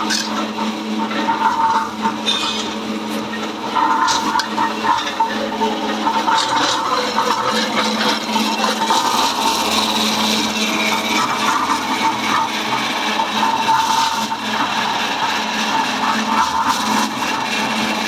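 Chain-drive electric concrete mixer running: the electric motor hums steadily while the belt and chain drive turn the drum, under a continuous mechanical rattle.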